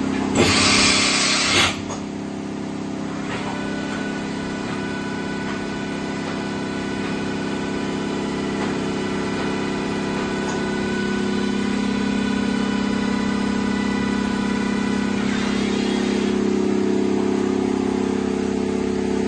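Doosan Mynx 750 vertical machining center running: a steady machine hum with several held tones that shift about halfway through. A loud hiss lasting about a second comes near the start.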